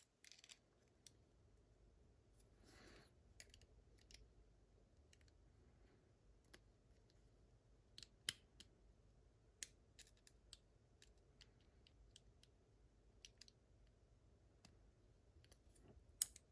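Faint, scattered small metallic clicks and ticks of lock parts being handled, over near silence, with a few sharper clicks near the middle.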